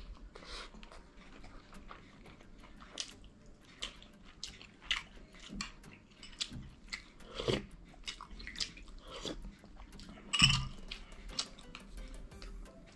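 A person eating chicken soup with rice close to the microphone: chewing with scattered short wet mouth clicks and smacks, and one louder one about ten seconds in.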